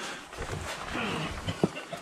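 A scrambling climber's laboured breathing with a short falling grunt, clothing rustling, and a sharp knock about one and a half seconds in as a glove or boot meets the rock.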